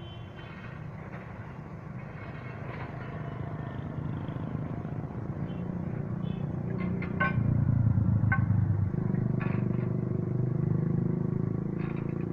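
Heavy diesel engine running with a low drone that grows steadily louder, loudest for a second or two about two-thirds of the way through. A few short metallic clanks sound over it in the second half.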